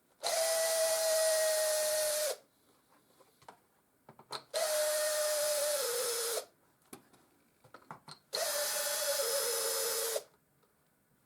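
Cordless drill-driver running in three bursts of about two seconds each, backing out the screws of a cover on a cultivator engine. Its whine dips slightly in pitch near the end of the later bursts.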